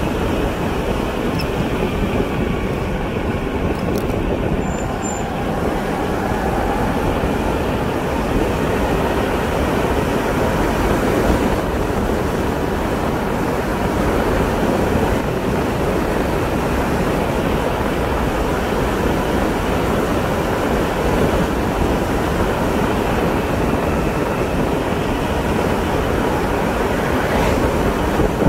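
Steady rushing wind noise on the microphone mixed with tyre and road noise from a vehicle riding along an asphalt road.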